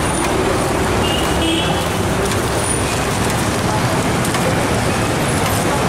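Steady, loud noise of a street-side dosa stall at work around a large flat griddle, with a few light metal clinks.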